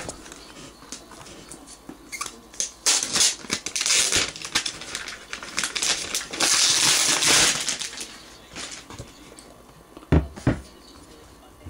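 Packaging rustling and crinkling as a new MacBook Pro is unpacked from its box. The handling is irregular, with a longer steady hiss of sliding or rubbing in the middle and two short knocks near the end.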